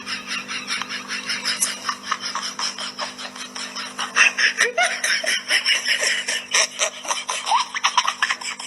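A person laughing hard and continuously in rapid, high-pitched pulses, over a steady low hum.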